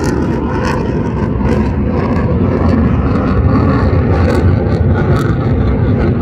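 Fighter jet's engine noise as it flies past overhead: a loud, steady low rumble that grows slightly louder after about two seconds.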